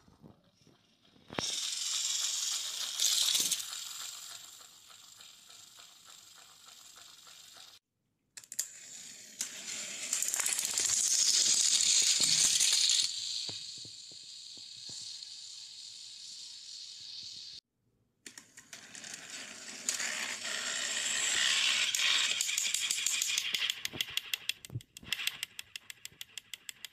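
Battery-powered plastic toy train motors (Thomas & Friends Plarail-style trains) whirring with a rattling gear noise, along with the clatter of plastic engines and wagons. The sound breaks off suddenly twice, and a fast run of clicks comes near the end.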